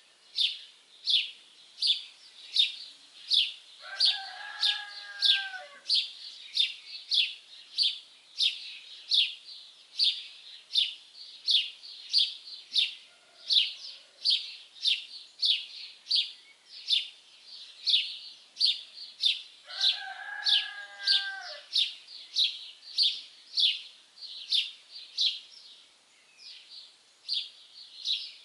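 A small songbird chirping over and over, about two short, sharp, falling chirps a second, without a break. Twice, about 4 and 20 seconds in, a longer and lower call of about a second and a half sounds beneath the chirps.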